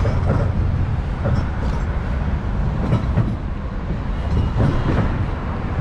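Steady heavy rumble of city street traffic, buses and other vehicles moving close by.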